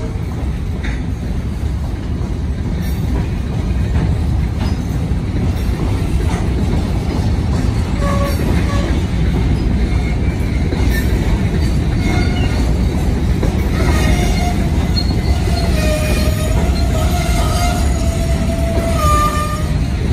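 Loaded covered hopper cars of a freight train rolling past: a steady, heavy low rumble of steel wheels on rail with occasional clicks. Thin wheel squeals come in briefly about eight seconds in and more steadily in the last few seconds.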